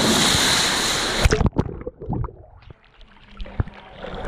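Heavy splashing of water as a Labrador crashes into the pool close by. The splashing cuts off suddenly about a second in, leaving lower gurgling and lapping water with a few knocks.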